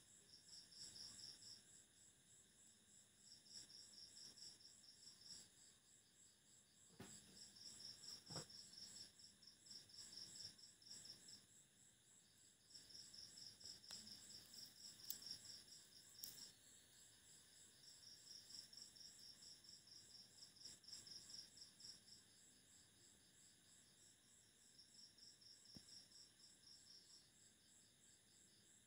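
Faint insect chirping: high pulsed trills in repeated bouts of two to three seconds with short gaps between, over a steady faint high tone. Two soft clicks about seven and eight seconds in.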